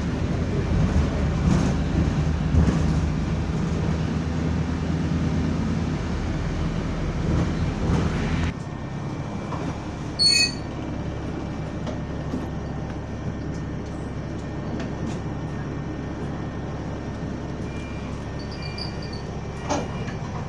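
Inside a double-decker bus: the engine and cooling fan make a loud, steady drone, which cuts out abruptly about eight seconds in and leaves a quieter engine hum. A short bell ding follows a couple of seconds later.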